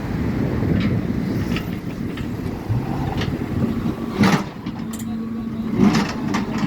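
Heavy diesel construction machinery running steadily at the roadworks, with a few sharp metallic knocks, the loudest about four seconds in and another near the end.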